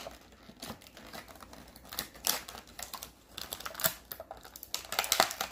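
Irregular clicking and crackling of stiff clear plastic toy packaging being handled and squeezed.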